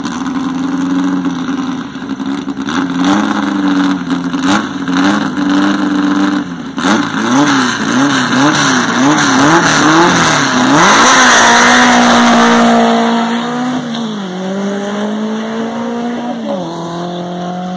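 Paxton-supercharged 2.4-litre air-cooled VW Beetle flat-four holding revs at the drag-strip start line beside another car, then blipping the throttle up and down rapidly. It launches with a loud rush of noise and accelerates away, its pitch climbing and dropping at two gear changes. It has the sound of a naturally aspirated engine.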